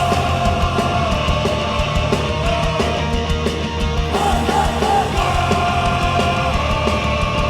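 Live hardcore punk band playing an instrumental passage: distorted electric guitars, bass and drums, loud and steady.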